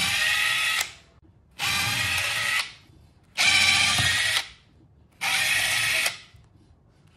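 DeWalt cordless drill running in four short bursts of about a second each, with a steady whine, as it backs screws out of a metal cover.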